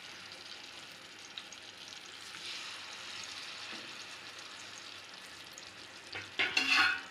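Tandoori-marinated chicken pieces sizzling steadily in shallow hot oil in an aluminium kadai, a soft frying hiss that swells a little midway, with a brief louder sound near the end.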